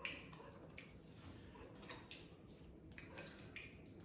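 Faint eating sounds of roast chicken being chewed: a few soft clicks and squishes scattered through near quiet.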